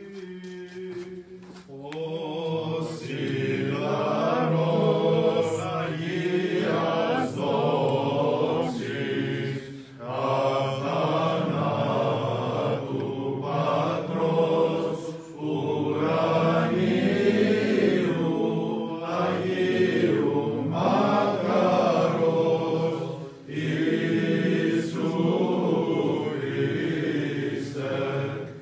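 Byzantine chant in Greek: a male cantor sings a long, ornamented line over a steady low held note, breaking off briefly between phrases.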